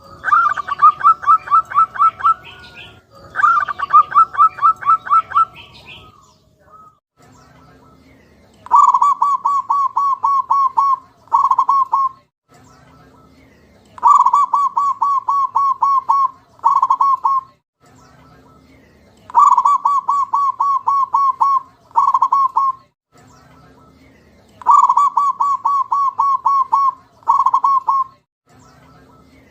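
Zebra dove cooing in phrases of rapid staccato notes. Two higher-pitched phrases open, and from about nine seconds in the bird repeats a long run of notes followed by a short one, four times, about every five and a half seconds.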